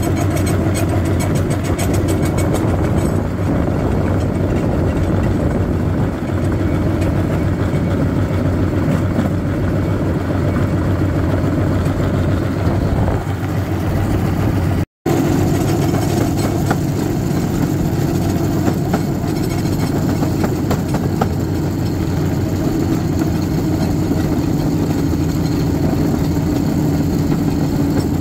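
The small engine of a motorized railcart running steadily as the cart rolls along the rails. The sound cuts out for an instant about halfway through.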